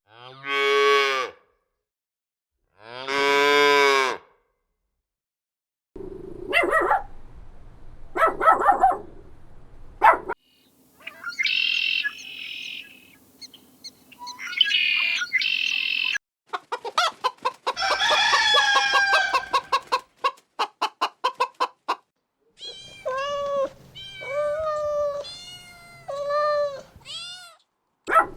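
A run of short animal recordings with brief silent gaps between them, mostly chickens: hens clucking and a rooster crowing.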